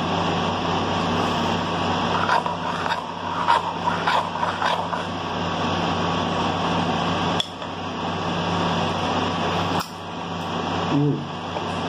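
A steady background hiss and hum, with a run of light clinks of a metal spoon against a ceramic bowl of dip between about two and five seconds in.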